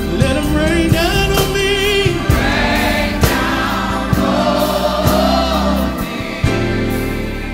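Gospel praise music: a choir singing long held notes with vibrato over instrumental backing.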